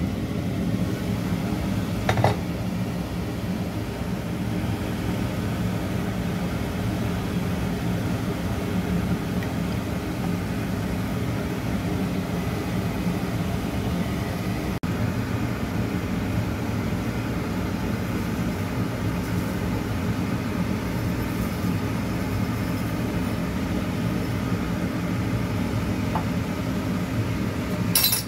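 Steady mechanical hum over a pot of soup boiling on the stove, with a single knock about two seconds in and a short burst of noise right at the end.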